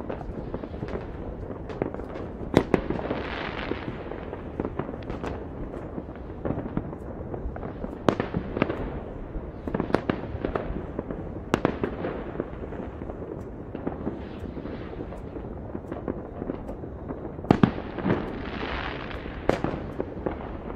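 Many fireworks going off at once: a constant rumble of bangs with sharper, louder reports every second or so. Crackling swells lasting a second or two come about three seconds in, around eight seconds in and near the end.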